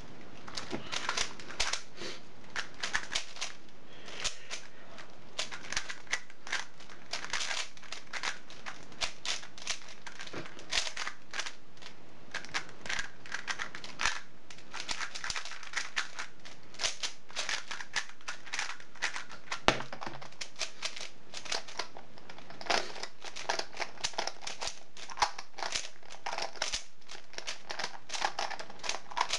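Plastic 3x3 speed cubes (Yuxin) being turned fast in a speed solve: a dense, unbroken run of rapid clicks and rattles of the layers, with a sharper knock about twenty seconds in.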